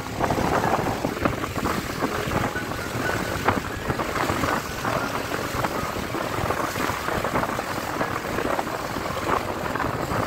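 Wind buffeting the microphone over waves washing in the shallows around a grounded boat, a steady rough rush with frequent small splashes and gusts.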